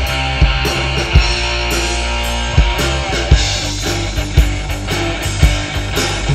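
Live rock band playing an instrumental passage: electric guitars and bass guitar over a drum kit, with sharp drum hits at regular intervals.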